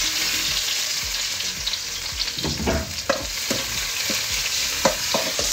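Chicken curry sizzling in a steel cooking pot, a steady hiss with small crackles, and a few light clicks of a knife against the pot.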